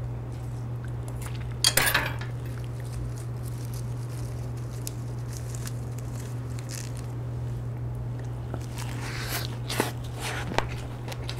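Eating a lettuce wrap of pork: a loud crunchy bite about two seconds in, then quiet chewing, with a few clicks of chopsticks and dishes near the end, over a steady low hum.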